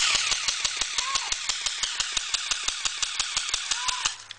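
Electric automatic airsoft gun firing full-auto: a rapid, even string of about seven shots a second over a steady whir, starting suddenly and stopping after about four seconds.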